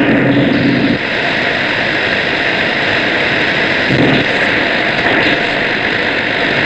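Shortwave radio reception on 12910 kHz buried in loud, steady hiss and noise. Faint low tones break through briefly near the start and again about four seconds in.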